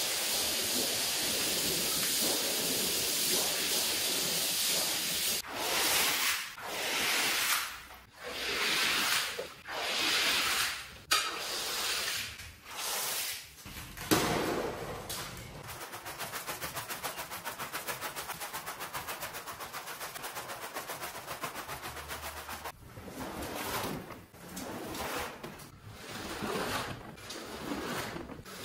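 Rug-washing sounds: a steady hiss of spray on a wet shaggy rug, then a series of swelling noisy strokes, a single sharp click near the middle, and several seconds of rapid, evenly spaced pulses before more strokes near the end.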